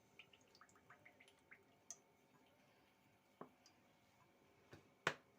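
Near silence with faint scattered kitchen ticks and small pops, then two knocks, the louder about five seconds in.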